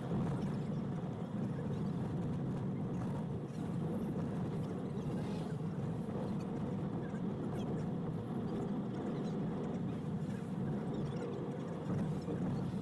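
Steady in-cabin drone of a Toyota HiAce van driving along a highway, engine and road noise blended together, from footage fast-forwarded by the driver.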